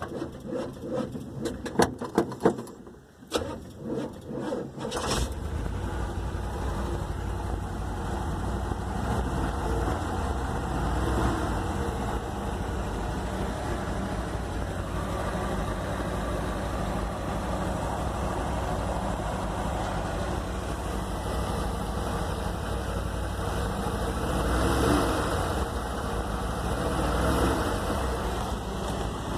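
Engine on a freshly rebuilt Holley 670 Street Avenger carburettor, first start before any carburettor adjustment: the starter cranks it over with rhythmic strokes, and it catches about five seconds in. It then runs steadily and is revved up and back down twice near the end.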